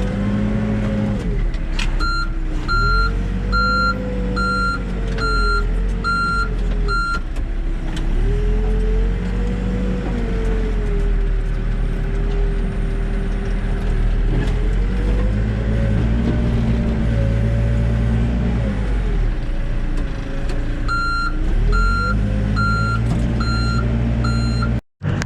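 Backhoe diesel engine running, its speed rising and falling as the machine works, with the reversing alarm beeping steadily about once every 0.7 seconds in two spells: from about two seconds in for five seconds, and again for about four seconds near the end.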